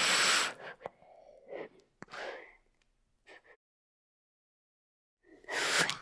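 Green iguana's short breathy huffs of air: a loud one at the start, three fainter ones over the next few seconds, and another loud one near the end.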